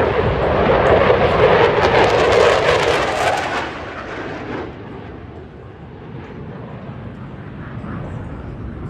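Fighter jets passing overhead: a loud jet roar for the first three or four seconds that then fades away, leaving a distant low rumble.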